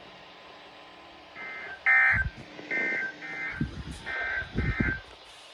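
Six short electronic two-tone beeps, grouped in three quick pairs, with a few low thumps among them.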